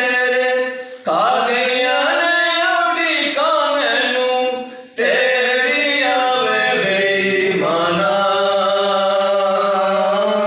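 Two men singing unaccompanied in long, drawn-out notes that slide in pitch. The singing breaks off briefly for breath about a second in and again near the five-second mark.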